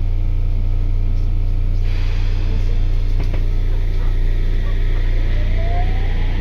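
Interior of a Sendai Subway 1000N series car: a steady low hum, with a hiss coming in about two seconds in and a single knock a little later. Near the end the train's IGBT-VVVF inverter motor drive starts a whine that rises steadily in pitch as the train pulls away.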